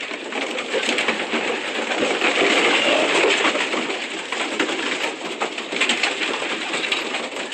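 Racing pigeons in a loft stirring: a dense, busy clatter of wing flaps and scuffling.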